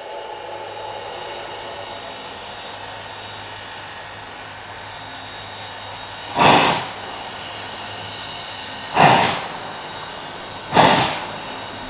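4-6-2 Pacific steam locomotive starting away from a standstill: a steady hiss of steam, then, from about six seconds in, three heavy exhaust chuffs that come closer together as the engine gathers speed.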